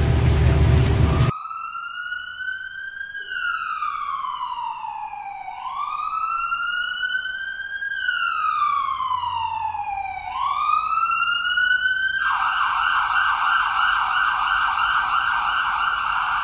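A train horn cuts off about a second in, giving way to an ambulance's electronic siren in a slow wail, rising and falling in pitch roughly every two and a half seconds. About three-quarters of the way through, the siren switches to a rapid yelp.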